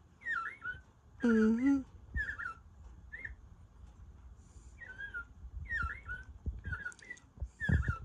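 Singing bird clock playing its recorded American robin song: a run of short warbled phrases separated by brief pauses, with a gap of about a second near the middle. A brief loud whine sounds over it about a second in.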